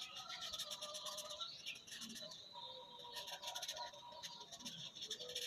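Felt-tip marker scratching on paper in rapid short back-and-forth strokes while colouring in.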